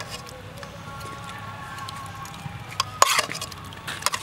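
A metal knife blade stirring and scraping through grated coconut and grilled banana in an aluminium pot, with sharp clinks of metal on the pot about three seconds in and a few more near the end.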